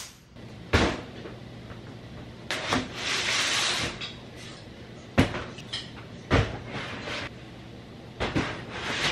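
Large plastic storage totes being handled and set down: a series of hollow plastic knocks and thuds, about five of them, with a longer scrape of a tote sliding about two and a half seconds in.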